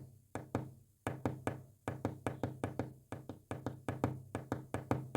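A rapid run of knocks on a surface, about two dozen of them in uneven groups with short gaps between, as when tapping out Morse code.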